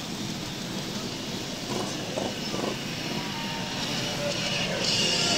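Engines of a slow parade of many motorcycles and scooters passing close by in a steady stream. The sound grows louder near the end.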